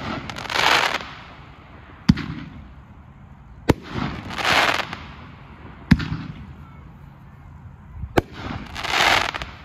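Sprinkle Donut consumer fireworks cake firing shots one at a time: four sharp reports about two seconds apart, with three loud hissing swells as the bursts spread and burn out.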